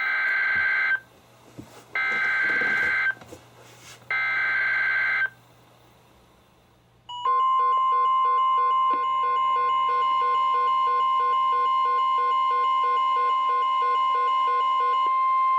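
Emergency Alert System SAME header from a NOAA Weather Radio broadcast: three data bursts about a second long, a second apart. After a short pause the steady 1050 Hz weather-radio warning alarm tone starts and holds, with a quicker pulsing beep alongside it. The sequence marks the start of a new warning, here a severe thunderstorm warning.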